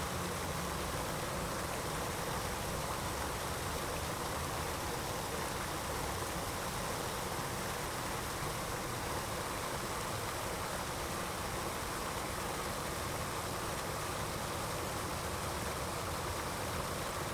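Steady white-noise sleep-aid track: an even, unchanging hiss with a deep rumble underneath and no breaks or changes.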